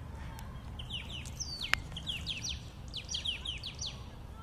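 Small bird chirping a series of quick, falling notes, several a second, over a steady low rumble, with one sharp click about a second and a half in.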